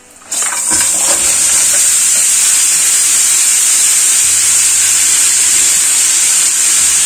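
Frozen sliced champignon mushrooms hitting hot oil in a frying pan: a loud sizzle with hissing steam starts suddenly just after the start and holds steady, as the frozen mushrooms give off their water into the hot fat.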